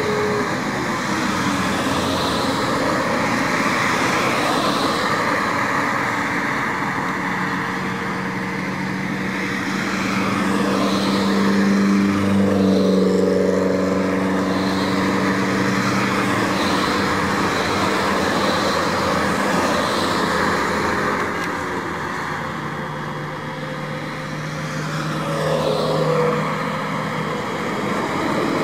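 Motor vehicles on a highway: engines running steadily over tyre and road noise. The sound swells about twelve seconds in and again near the end.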